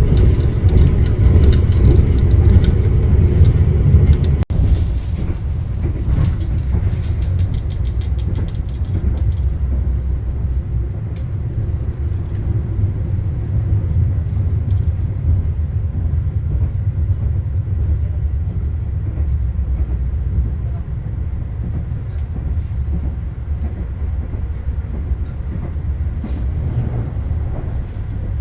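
Argo Bromo Anggrek express train running on the rails: a steady low rumble of wheels and carriage, with a quick run of rail clicks and rattles. It breaks off for an instant about four seconds in and goes on a little quieter.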